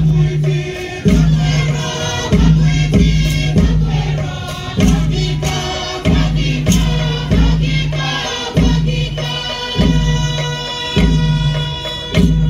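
Traditional Torres Strait Islander dance music: a group singing together over a deep drum struck about once a second, each beat ringing on briefly, with an occasional quicker double beat.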